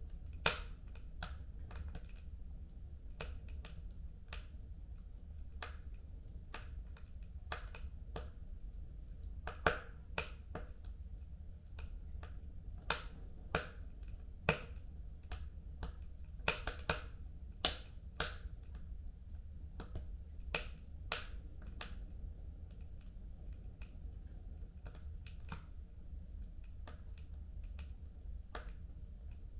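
Wood fire burning in a home fireplace, crackling with irregular sharp pops over a low steady rumble; the pops come thickest through the middle and thin out near the end.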